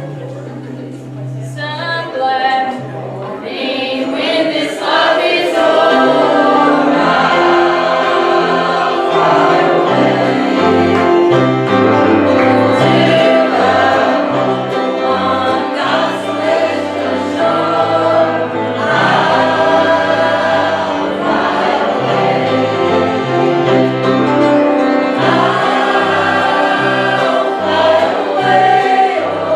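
A choir singing gospel music with instrumental accompaniment; the voices come in about two seconds in over a held low accompaniment.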